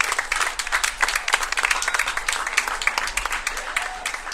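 Audience applause: many hands clapping at once.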